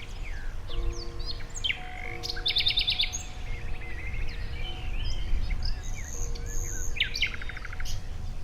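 Several birds chirping and singing, with quick rapid trills about two and a half seconds in and again near the end. Beneath them sit faint held tones and a steady low rumble.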